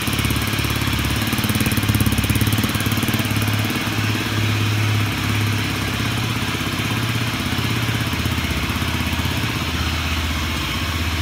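A KSR 125 motard's single-cylinder engine idling steadily, started in the cold after standing unused for a month.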